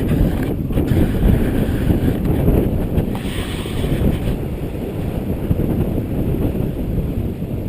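Strong wind buffeting the GoPro's microphone, a loud, low, gusting rumble that rises and falls without any steady pitch.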